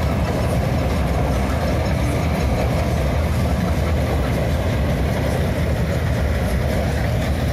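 Corn harvester's engine and machinery running steadily, a continuous low, even drone with no change in pace.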